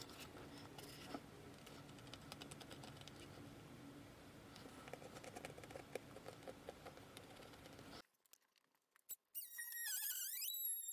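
Faint scraping and small taps of a chisel cutting into wooden baseboard. It stops abruptly, and near the end a short, high squealing tone dips in pitch and rises again.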